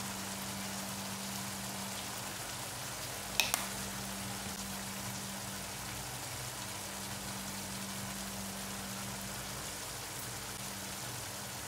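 Sauce of eggs, carrots and tomato simmering in a nonstick pan: a steady bubbling, sizzling hiss over a low steady hum. One sharp click about three and a half seconds in.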